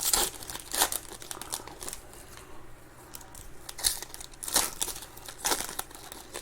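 Trading card pack wrappers crinkling and tearing in short bursts as packs are ripped open and handled, with a quieter stretch in the middle.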